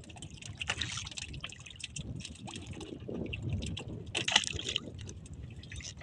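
Water sloshing and lapping against the hull of a small outrigger boat, with scattered small knocks and crackles, the sharpest about a second in and again past four seconds.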